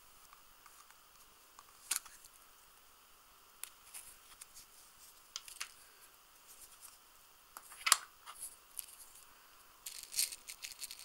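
4 mm Flobert rimfire cartridges and their containers being handled: scattered sharp clicks and light rattles of the small metal cases shifting in a plastic tub and a tin, the sharpest click about eight seconds in and a quick run of clicks near the end.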